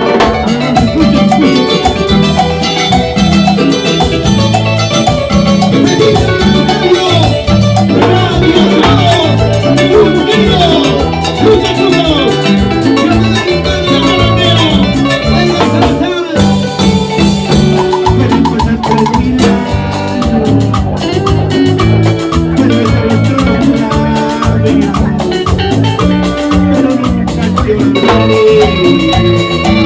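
A Latin dance band playing an instrumental passage, with a steady beat of percussion and bass under a lead melody.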